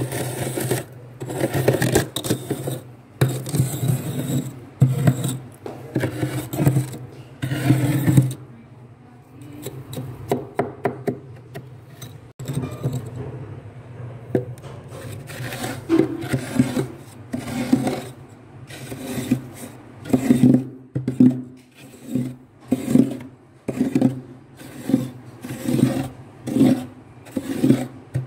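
Thick, soft freezer frost scraped off with a glass cup in repeated rasping strokes close to the microphone. The strokes come about once a second, fade for a few seconds in the middle, then return in a steady rhythm.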